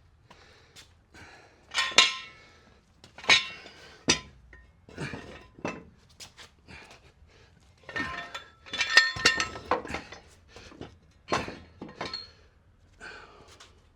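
Steel 1967 Volkswagen chassis being manhandled and flipped over: a run of irregular metal clanks, knocks and scrapes, several of them ringing. The loudest clangs come about two and three seconds in and in a cluster around nine seconds.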